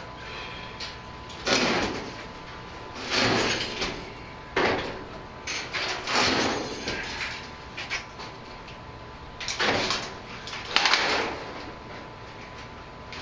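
Large welded steel sculpture being heaved and shifted on a shop floor: about six separate scraping, grinding bursts of metal on the floor, each lasting up to a second, with pauses between.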